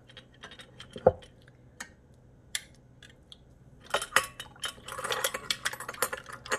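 Metal ladle clinking and scraping against a ceramic bowl and a stainless steel funnel as milk is scooped and poured into a glass bottle. Scattered light clinks with a dull knock about a second in, then a denser run of clatter from about four seconds on.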